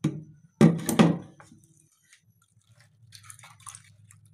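A few sharp knocks and clinks on a stainless steel mesh strainer, all within about the first second, as the blender jar of chilli sauce is emptied into it. After that comes faint, wet scraping as a spoon stirs the thick blended sauce through the mesh.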